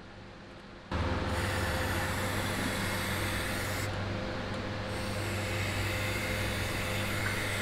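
Aerosol can of enamel spray paint, held in a trigger handle, spraying in a steady hiss that starts about a second in.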